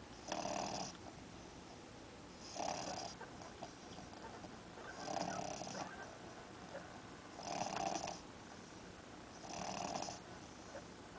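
Miniature English bulldog snoring in its sleep: five snores, about one every two and a half seconds.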